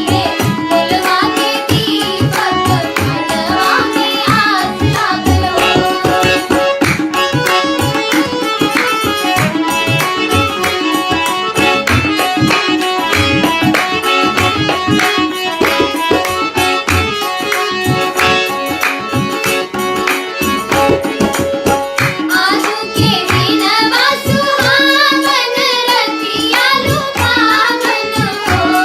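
Children singing an Indian devotional song to Shiva over tabla drumming, which keeps up a steady beat throughout. The voices are heard at the start and again from about two-thirds through, with an instrumental stretch of held tones and drumming between.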